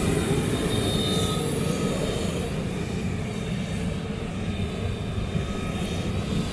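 Steady drone of aircraft engine noise with no clear change in pitch.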